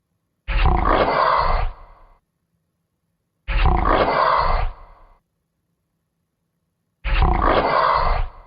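Monster roar sound effect played three times, the same deep, growling roar each time, about a second and a half long with a short fading tail, about three seconds apart.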